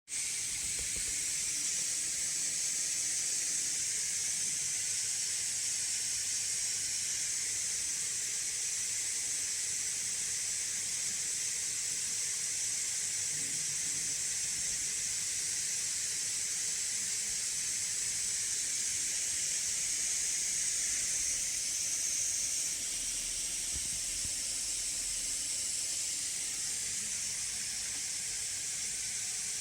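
MSI Raider GE78HX gaming laptop's cooling fans running at high speed under a full 3DMark Time Spy Extreme load: a steady airy rush with no coil whine. It eases slightly about 23 seconds in.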